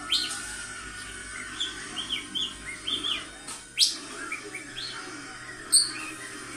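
Budgerigar warbling: a run of short chirps and chattering notes, with sharper, louder calls at the start and near four seconds in and a brief piercing high call near six seconds in. Steady background noise lies under the song.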